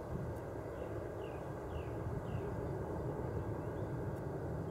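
Airbus A300's jet engines at take-off power, a steady low rumble as the airliner climbs away. A few short falling bird chirps come through in the first half.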